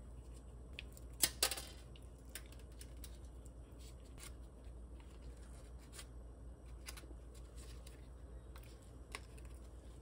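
Light clicks and taps of sliced ginger, whole black peppercorns and bay leaves being dropped onto a raw pork shoulder in an enameled cast-iron pot, with a louder rustling clatter about a second and a half in, over a low steady hum.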